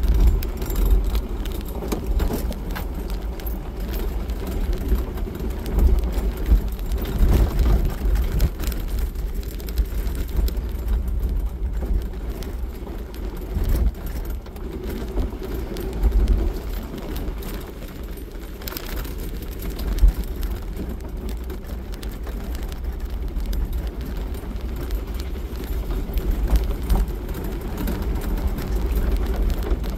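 Jeep Wrangler driving on a gravel road, heard from inside the cab: a steady low rumble of engine and tyres, with irregular knocks and jolts as it rolls over the gravel and bumps.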